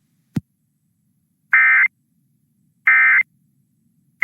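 Emergency Alert System end-of-message data bursts: two short, loud, buzzy bursts of digital tones about 1.3 s apart, marking the close of the warning broadcast. A brief low blip comes about a third of a second in.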